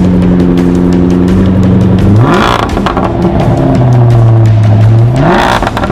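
Jaguar F-Type with a Quicksilver aftermarket exhaust and ECU tune, idling and then revved twice. Each time the exhaust note climbs sharply to a loud rasp and drops back, first about two seconds in and again near the end.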